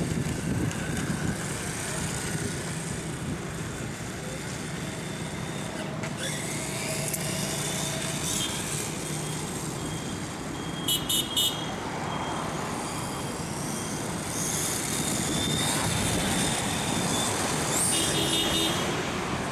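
Road and traffic noise with a radio-controlled motorcycle's motor whine, rising in pitch as it speeds up about a third of the way in. A quick run of short high beeps about halfway through is the loudest sound, and more beeps come near the end.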